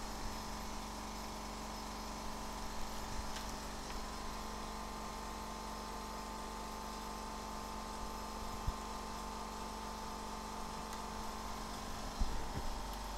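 Steady electrical hum and buzz of bench equipment, with a few faint clicks of small parts and connectors being handled, the loudest about 9 and 12 seconds in.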